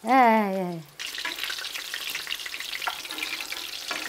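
Flour-and-egg-coated whiting frying in shallow oil in a skillet: a steady crackling sizzle that starts suddenly about a second in, with a couple of light clicks as the fish are turned with a fork. A woman's drawn-out falling vocal sound comes first.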